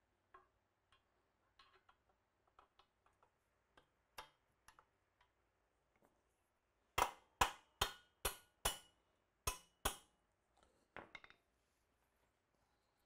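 Video wall rigging hardware and panels being handled and fitted together: scattered light clicks, then about seven sharp knocks in quick succession midway, then a few more clicks.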